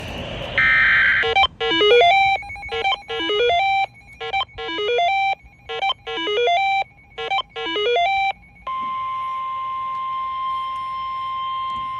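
Emergency weather alert signal for a severe thunderstorm warning. It opens with a short harsh burst, then an electronic chime melody repeats six times in quick phrases, and from about nine seconds in a single steady alert tone sounds.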